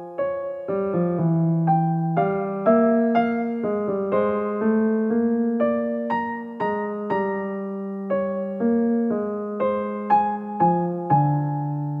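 Background music: solo piano playing a gentle melody of single struck notes that ring and fade, over a slow bass line.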